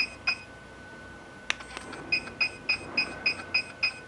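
HIFU machine beeping with each ultrasound shot from its 4.5 mm emitter, short even beeps about three a second over a faint steady tone. The beeping stops for about a second and a half, a single click sounds in the pause, then the beeps start again.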